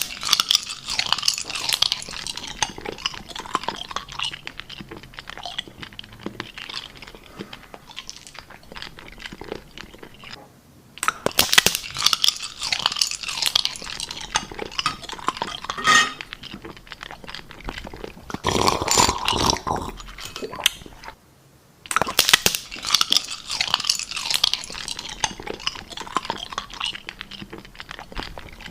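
Close-up crunching and chewing of something hard and brittle, dense crackly bites and chews with two brief pauses.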